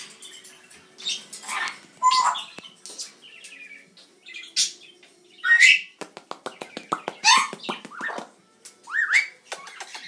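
Red-headed amazon parrot squawking loudly in a string of short, harsh calls, one rising in pitch near the end, with a run of quick clicks between calls about six seconds in.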